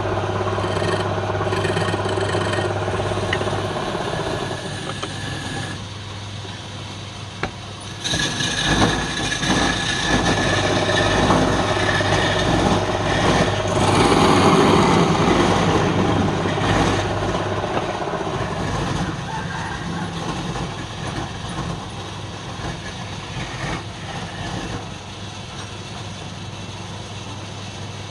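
Wood lathe running with a steady motor hum. About a third of the way in, a rough, louder noise of a tool working the spinning wood comes in for around ten seconds, then eases off.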